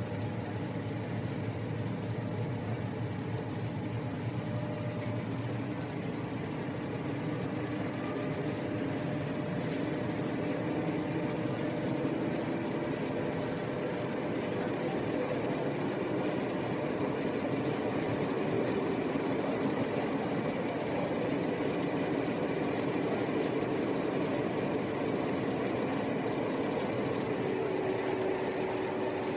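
Electric commuter train running, heard from inside the carriage: a steady rumble of wheels and motors with a faint hum, growing a little louder about seven seconds in.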